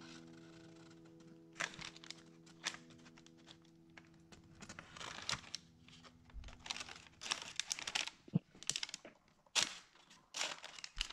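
Parchment paper crinkling and a fluted round metal pastry cutter clicking and scraping as it is pressed through a sheet of puff pastry, in sharp crackles and taps that come thicker in the second half. A few held music notes fade out over the first half.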